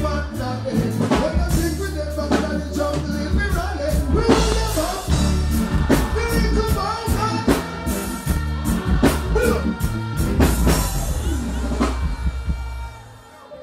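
Live reggae music over a stage sound system: deep bass and drums with a man singing into a microphone. The music cuts off suddenly near the end.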